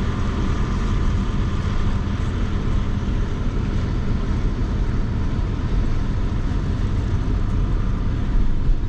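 Swaraj 733 FE tractor's three-cylinder diesel engine running steadily while driving on the road, a constant low hum with no change in pace.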